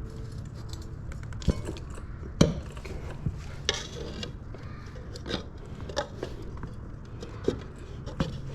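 Tire lever or screwdriver clicking and knocking against a metal wheel rim while a tire bead is stretched and pried over the rim, in scattered irregular clicks over a steady low hum.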